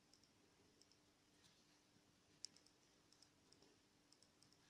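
Near silence with faint, scattered small clicks, one a little louder about two and a half seconds in, from a metal crochet hook being worked through yarn stitches to weave in a loose end.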